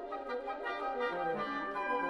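Wind quintet of flute, oboe, clarinet, French horn and bassoon playing classical chamber music, several parts at once; a lower part comes in about a second in.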